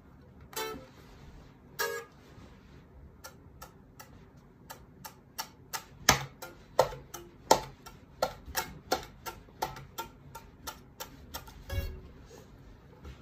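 A ukulele: two short plucked notes, then a run of sharp percussive taps and knocks on the instrument, sparse at first and then about three a second, ending in a dull thump near the end.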